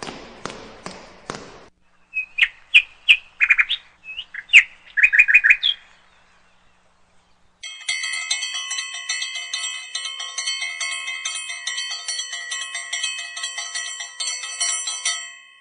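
Parrot chicks give short, high chirping calls for a few seconds after some light clicking. Then a long stretch of steady ringing tones follows, flickering with rapid onsets.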